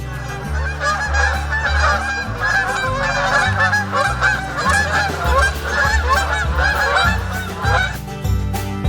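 A flock of waterfowl calling: many honking, quacking calls overlapping in a dense chatter that stops about eight seconds in.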